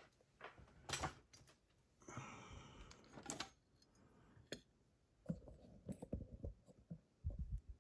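Faint clicks and taps of a lock and small metal tools being handled on a bench, with a short scraping rustle about two seconds in and a few soft low knocks near the end.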